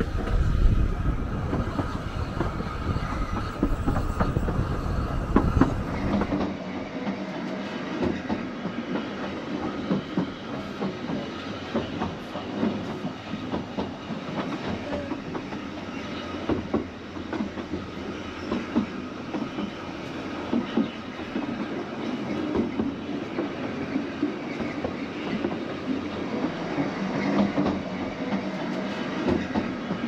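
Narrow-gauge railway carriage running along the line, its wheels clicking and rattling over the track, heard from the open carriage window. A heavy low rumble in the first six seconds drops away abruptly, leaving the clicks and rattle over a steady running noise.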